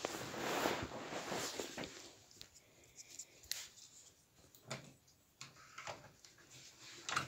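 Clear plastic bag of small rhinestones crinkling as it is handled, loudest in the first two seconds, then scattered faint rustles and clicks.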